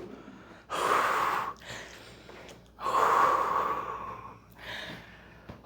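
A person taking heavy, breathy breaths: two long ones and a shorter, softer third near the end.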